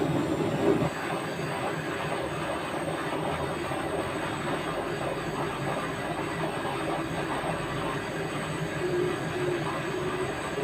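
Steady, continuous mechanical rumble and hiss with a faint hum, unbroken throughout.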